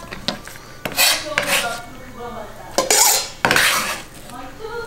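Chef's knife scraping chopped green onions across a plastic cutting board: about four short, sharp scrapes.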